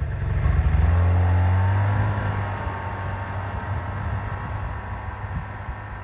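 Snowmobile engine pulling away under throttle while towing a loaded gear sled. The engine note climbs over the first couple of seconds, is loudest about a second in, then fades steadily as the machine moves off.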